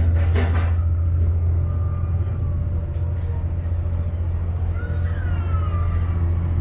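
Vaporetto water bus's engine running steadily, a deep constant drone heard on board, with a few short knocks in the first second.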